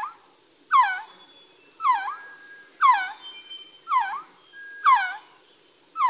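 Resplendent quetzal calling: a mellow whistled note that slurs down and turns up at the end, repeated about once a second. Other birds whistle faintly behind it.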